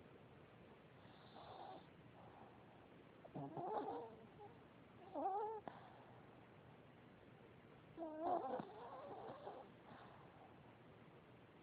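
Pitched, wavering animal calls: a faint one about a second in, then three louder ones about three and a half, five and eight seconds in, the last one drawn out.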